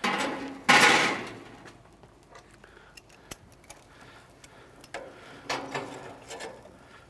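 Metal clatter from a stainless wire-mesh rotisserie basket being handled on the grill grates with metal tongs: a loud scraping rattle about a second in, scattered clinks, and another rattle near the end.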